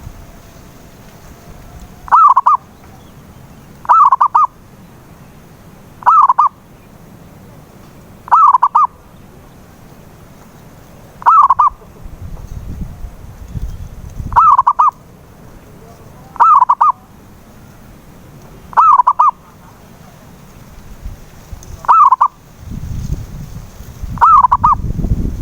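Zebra dove (perkutut) cooing, a short phrase repeated about every two seconds, ten times. A low rumble sits underneath and swells near the middle and near the end.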